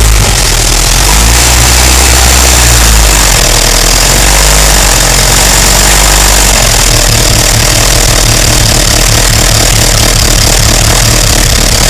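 Engine running loudly and steadily: a deep rumble with a thin, steady high whine above it.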